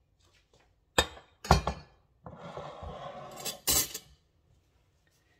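Kitchen dishes and utensils clattering: a sharp clink about a second in and another half a second later, about a second of rougher rattling noise, then two more sharp clinks close together near the end.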